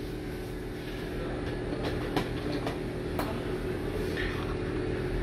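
Steady low mechanical hum, with a few faint light clicks about two and three seconds in.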